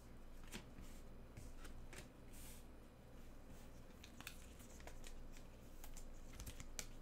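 Faint rustling and scattered light clicks of trading cards being flipped through and handled by a gloved hand.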